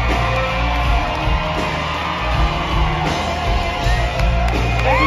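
Live country-rock band playing at full volume: bass and drums under electric guitars, with a wavering held lead note that slides up and holds near the end.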